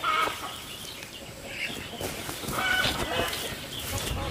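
Chickens clucking now and then in short calls.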